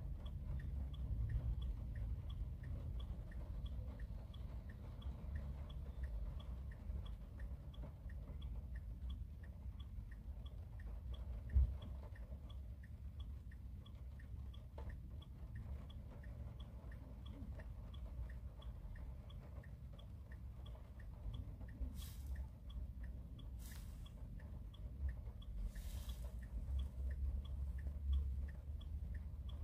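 Rain heard from inside a car, a low muffled pattering on the roof and glass, with a steady ticking about twice a second throughout. A few short hisses come near the end.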